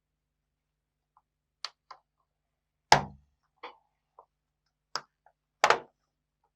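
The plastic bottom cover of a Lenovo Ideapad 330S laptop being pried off with a tool, its clips snapping loose one after another: a series of sharp, irregular clicks and snaps, the loudest about three seconds in and near the end.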